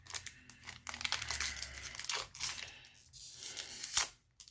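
Foil trading-card booster pack wrapper being torn open and crinkled, in two spells of rustling tearing, with a sharp click near the end.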